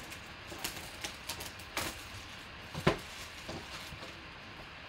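Cardboard trading-card box being handled and opened by hand: light scattered taps and rustles of card stock, with one sharper knock about three seconds in.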